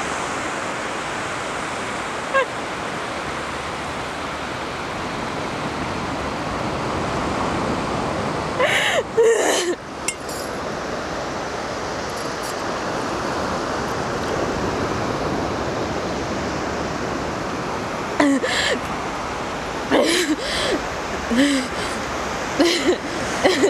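Steady wash of sea surf, broken by short wordless outbursts from a woman's voice: a cluster about nine seconds in and several more over the last five seconds.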